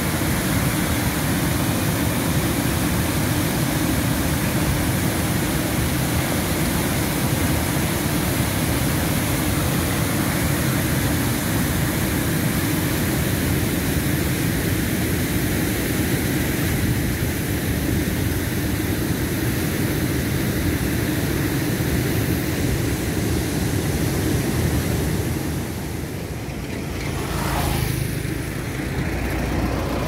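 Brown floodwater rushing over a low concrete weir and through boulders in the river below it: a steady, even rush of water. About four seconds from the end the water sound drops away and a truck passes on the road.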